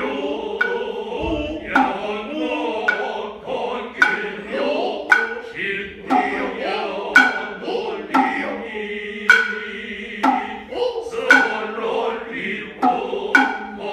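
Noh chorus (jiutai) chanting in unison, accompanied by kotsuzumi and ōtsuzumi hand drums. The drums strike sharply about once a second, with the drummers' short vocal calls between strokes.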